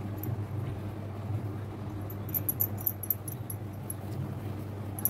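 Steady low hum with a brief run of faint, rapid high clicks a little past two seconds in.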